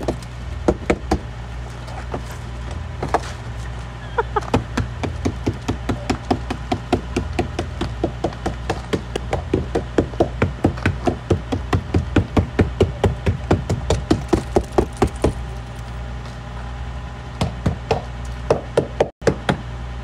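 Claw hammer tapping repeatedly on the ice-coated edge of a car door to crack the ice that has frozen it shut: light knocks, spaced out at first, then a quick run of about three or four taps a second, thinning out near the end.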